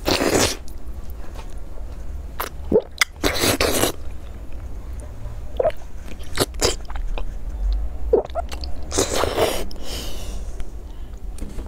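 Close-miked biting and chewing of a large piece of sauce-coated fried food, with wet mouth clicks throughout. Louder bite noises come at the start, about three seconds in, and about nine seconds in.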